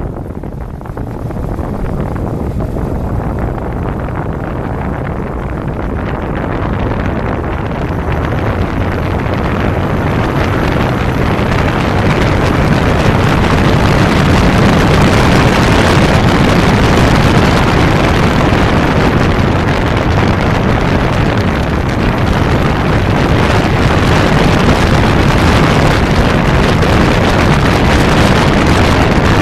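1992 Kawasaki Zephyr 550's air-cooled inline-four engine running as the motorcycle rides and picks up speed, mixed with wind rushing over the microphone. The sound grows louder over the first dozen seconds or so, then holds steady.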